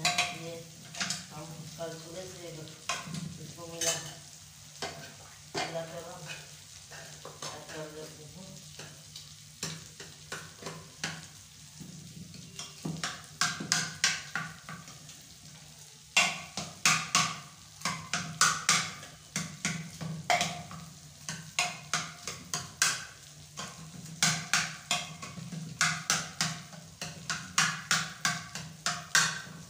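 A spoon stirring cooked spinach saag in an aluminium pressure cooker, knocking and scraping against the pot's sides. The strokes are sparse at first and come faster, about two a second, through the second half.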